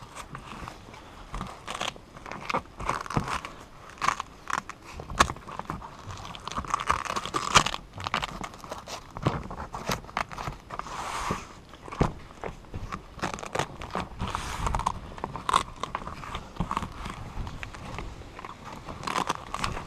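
Folding kayak's fabric hull skin being handled, pulled and fitted over its frame: rustling and crinkling with scattered clicks and knocks, and a few longer rasps.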